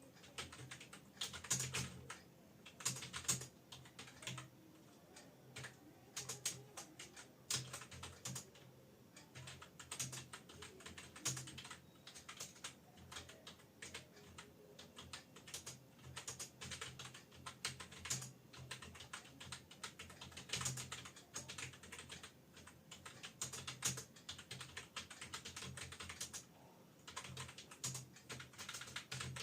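Typing on an external computer keyboard: runs of quick key clicks with brief pauses between them.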